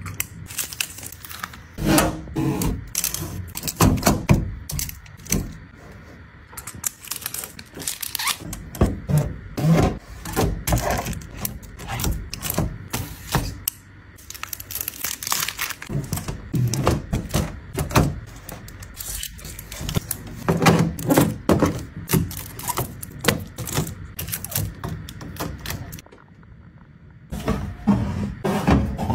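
Kitchen restocking handling sounds: a busy, irregular run of clicks, clacks and thunks as containers, lids and packaged items are handled and set down, with a short lull near the end.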